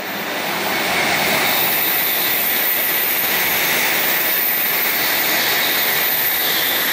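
Tokaido Shinkansen bullet train passing at high speed: a loud, steady rush of air and wheel noise that swells over about the first second and then holds level.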